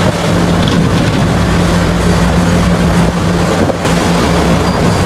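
Heavy diesel mining machinery, a large hydraulic excavator at work, running steadily with a constant low engine hum.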